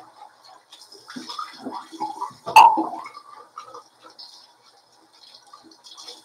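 Water splashing at a bathroom sink during a wet shave, with one sharp knock, the loudest sound, about two and a half seconds in.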